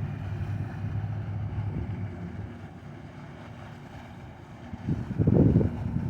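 Wind buffeting the microphone over a steady low hum, gusting much harder about five seconds in.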